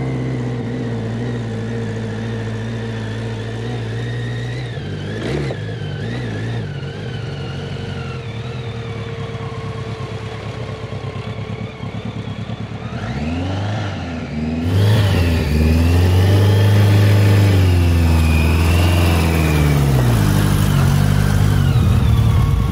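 BMW-powered 1000cc trophy kart engine running steadily at low revs, then revving up and down repeatedly as the kart drives through a deep puddle, getting louder from about halfway in, with water splashing near the end.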